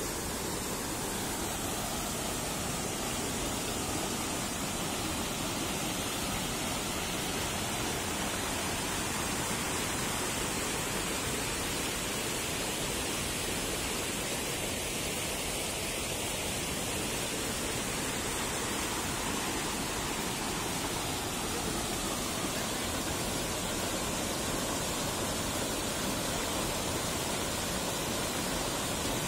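Fast, churning river water rushing as a steady roar.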